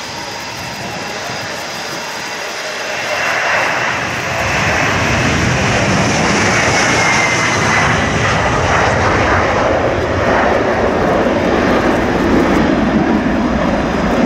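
Boeing KC-767J tanker's two General Electric CF6-80C2 turbofans at takeoff thrust as the airliner rolls, lifts off and climbs away. The engine noise grows louder about three seconds in. A faint whine drops in pitch about halfway through.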